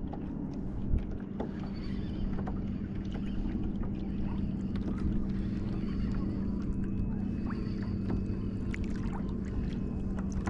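Steady low drone of a nearby motorboat's engine, with small water splashes and clicks around the kayak.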